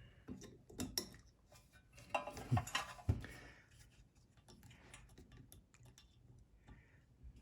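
Light metallic clicks and clinks of a small tool working a retaining clip off a blower motor's bearing housing. The busiest part comes about two to three seconds in: a run of scraping clinks and two knocks.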